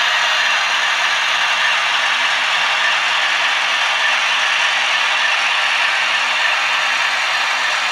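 TT-scale model locomotive running along the layout's track: a steady mechanical whir and rattle of its motor, gears and wheels.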